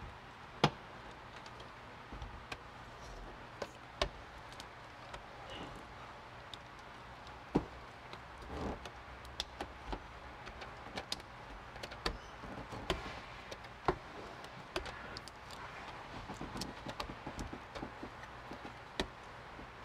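Irregular sharp clicks and taps with a brief rustle in the middle, from hands and a hand tool working tint film around the frame of a truck cab's rear window.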